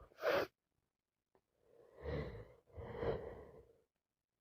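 A woman with a heavy head cold: a short sniff, then two breathy, half-voiced gasps about two and three seconds in, the catching breaths that build up to a sneeze.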